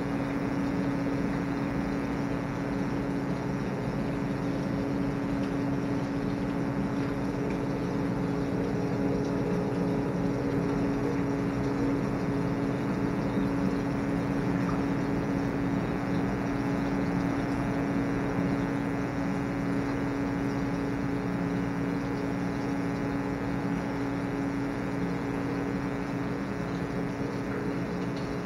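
Steady machine hum from the water pumps and filtration of an indoor saltwater pond: one low humming tone with many higher overtones over a faint rushing, unchanging throughout.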